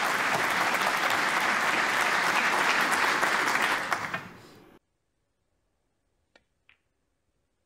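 Audience applauding steadily, fading about four seconds in and then cut off sharply. Near silence follows, with two faint clicks a fraction of a second apart.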